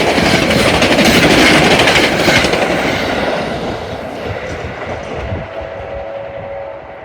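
New Jersey Transit commuter train hauled by a GP40PH-2B diesel locomotive passing at speed, its wheels clattering over the rail joints, then receding and fading away over the last few seconds.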